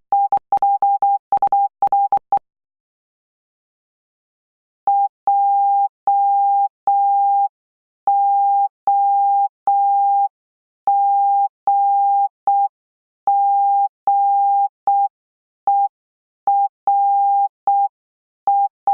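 Morse code sent as a single steady beep of about 800 Hz, keyed on and off: a quick run of short dots and dashes in the first couple of seconds, then, after a pause of about two and a half seconds, slower code with long dashes and gaps between letters.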